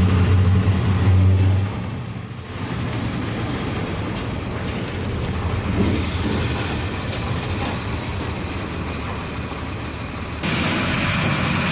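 Volksbus 17-230 EOD city bus's diesel engine running, loud and strong for the first two seconds, then easing off and running more quietly and steadily. Near the end a steady rushing noise comes in suddenly.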